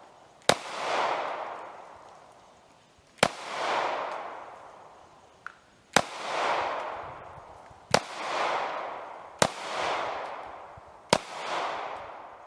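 Six single shots from a Taurus G2C pistol, spaced a second and a half to three seconds apart. Each sharp crack is followed by a rolling echo that swells and then fades over about two seconds. A faint small click comes about halfway through.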